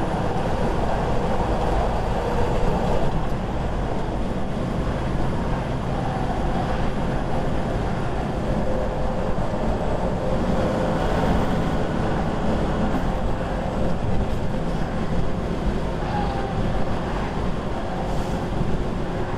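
Steady engine and road noise heard inside a semi truck's cab while it cruises at highway speed, about 60 to 68 mph.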